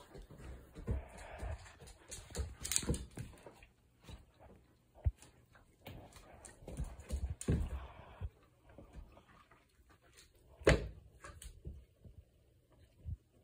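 Two dogs playing with toys on a wooden floor: irregular knocks, thumps and scuffs of paws and toys, with one sharp thump about three-quarters of the way through.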